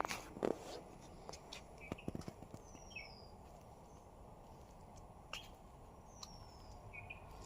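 A small bird calling in a garden: a short, high, falling whistle repeated about three times, each with a brief lower chirp nearby. Faint clicks are scattered over a quiet outdoor background.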